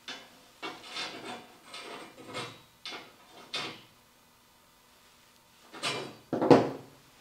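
Steel pieces being slid and set down on a plywood work table: a run of short scrapes and knocks, a pause, then the loudest knock near the end.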